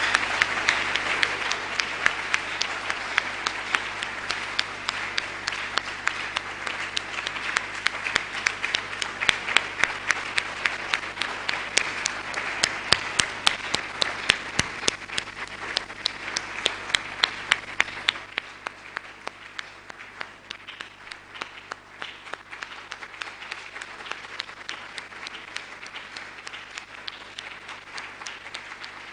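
A large audience applauding in a standing ovation, dense clapping with some sharp single claps standing out. The applause is strongest for the first eighteen seconds or so, then drops to a quieter, thinner clapping.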